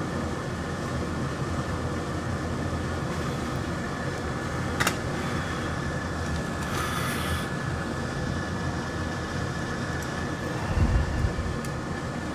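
Steady fan hum from repair-bench equipment, with a thin, steady high whine over it. A sharp click comes about five seconds in, a short hiss around seven seconds, and a low thump near eleven seconds.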